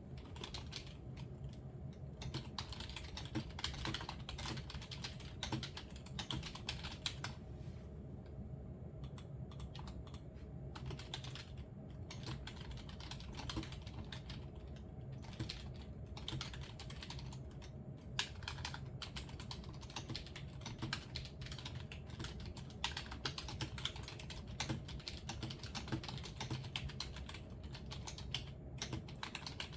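Typing on a computer keyboard: quick runs of keystrokes with short pauses, thinning briefly about eight seconds in. A steady low hum sits underneath.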